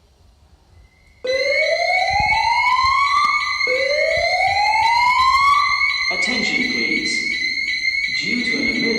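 Fire alarm sounders of a GST-IFP8 fire alarm system going off about a second in: two slow rising whoops, each about two and a half seconds long, over a steady high tone. After about six seconds the whoops stop, and an uneven lower sound carries on under the steady tone.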